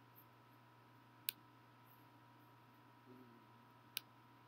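Near silence with two short, sharp clicks, one about a second in and one near the end: computer mouse clicks.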